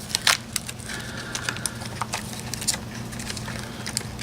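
Scattered small clicks and light rattles of AA batteries being handled, over a steady low hum.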